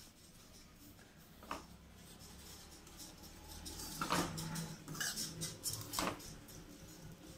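Metal spoon scraping through semolina and against a kadai as the rava is stirred and roasted in ghee, with a few sharper knocks of the spoon on the pan.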